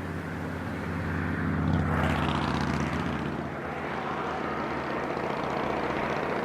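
KiHa 120 diesel railcar running past, its engine hum steady under rumbling wheel and rail noise that swells to its loudest about two seconds in.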